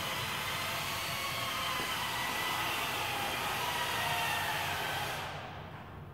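Steady rushing hiss from an opened wall tap over an old sink, with faint wavering whistle tones, dying away near the end.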